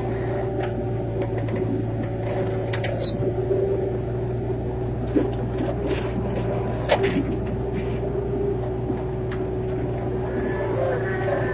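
Excavator's diesel engine running steadily, with a few short knocks and clanks from the machine working.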